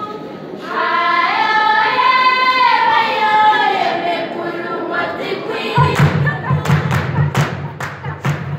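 A group of girls' voices singing a traditional song together, with a melody that rises and then falls. About six seconds in, a drum comes in with quick, sharp beats under the singing.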